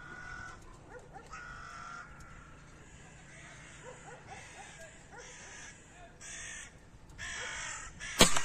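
Crows cawing over and over, harsh calls about every second. Near the end comes a single sharp crack, the shot of a Cometa Fenix 400 spring-piston air rifle.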